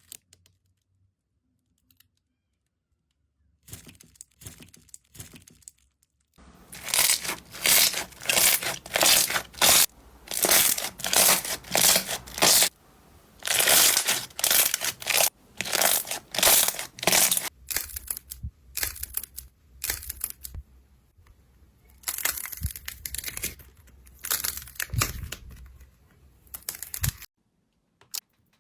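Slime being squeezed and pressed, giving repeated crackling, crunching bursts. They start faintly a few seconds in, come loud and quick for a while, then soften before stopping near the end.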